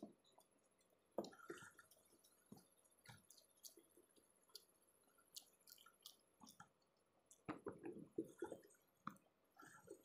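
Faint eating sounds: chewing and mouth smacks, with hands squishing and scooping rice off a banana leaf, heard as scattered short clicks and soft squelches that grow busier about three-quarters of the way through.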